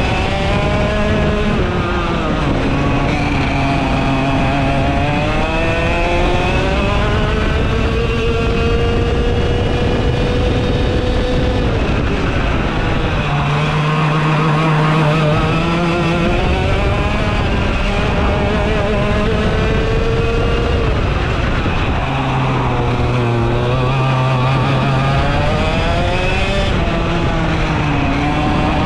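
Vortex ROK GP 125cc two-stroke kart engine running hard at speed, heard onboard, its pitch climbing as it accelerates and dropping about three times as the kart slows for corners.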